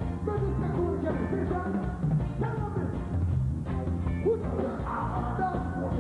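Live dancehall reggae music: a band plays a bass-heavy riddim while a deejay chants over it on a microphone.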